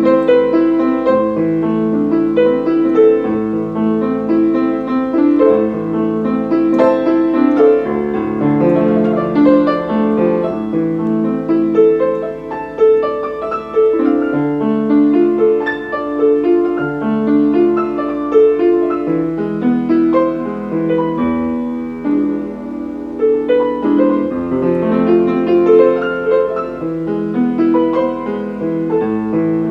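Piano with a Steinway tone playing a continuous passage of overlapping notes.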